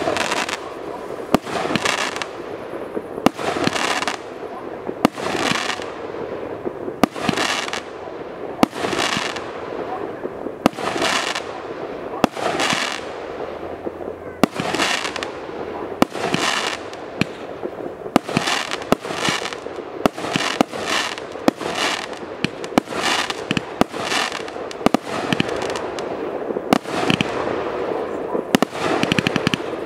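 A 28 mm fireworks cake firing its shots one after another, about one a second. Each shot is a sharp bang followed by a fading crackle as the stars burst and burn out.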